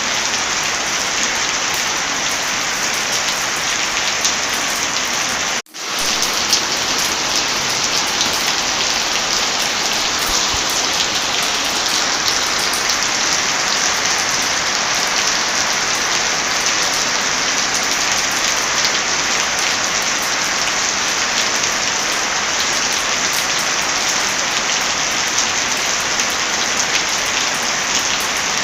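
Heavy rain falling steadily, a dense hiss with many small pattering drops. The sound cuts out for a split second about six seconds in, then resumes.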